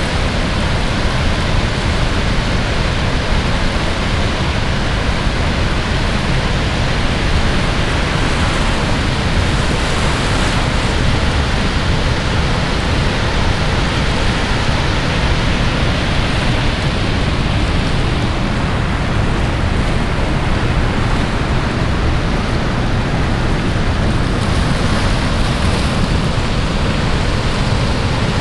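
The Rhine Falls, a large river waterfall, and the churning river below it: a loud, steady rush of falling and turbulent water.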